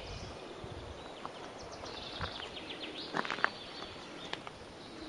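Forest ambience with small birds singing in short, rapid chirping trills, and a few sharp clicks about three seconds in.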